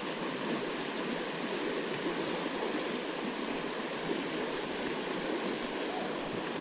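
Steady flowing river water.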